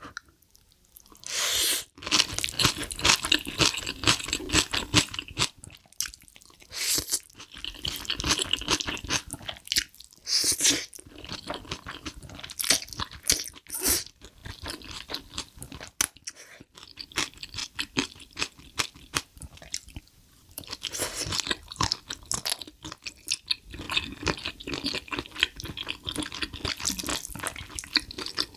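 Close-miked eating of spicy stir-fried cuttlefish with thin wheat noodles and bean sprouts: chewing, slurping and crunching in uneven bursts of mouth sounds.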